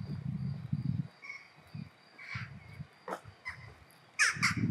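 Birds calling, with a crow cawing three times near the end, over a low rumble that comes and goes.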